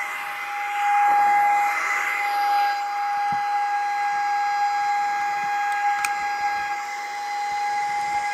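Small hand-held cordless vacuum (DSPIAE HC-V) running, a steady high motor whine with a rush of air that swells about a second in as it picks up sanding dust.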